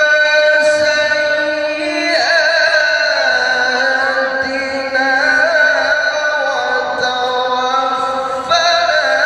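A male qari reciting the Quran in the melodic tilawah style into a microphone: a long held note, then a wavering, ornamented run from about two seconds in, and a new held note near the end.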